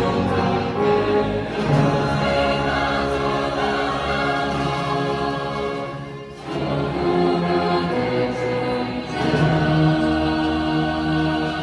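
A large combined choir of children's and teenage voices singing with orchestra and band accompaniment in a live performance. The sound thins briefly about six seconds in at a break between phrases, then the full ensemble comes back in.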